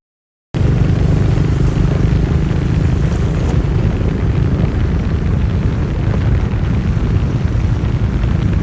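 A loud, steady low rumble with a hiss over it, cutting in suddenly about half a second in.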